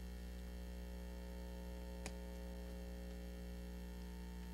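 Steady electrical mains hum in the sound system, a low buzz with its overtones, with a single short click about two seconds in.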